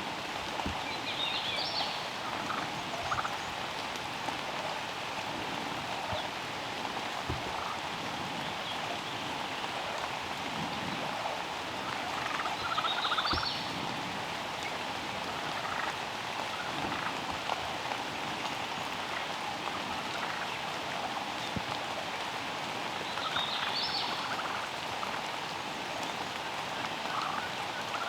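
Wild turkey gobbler gobbling three times, about ten seconds apart, over steady rain.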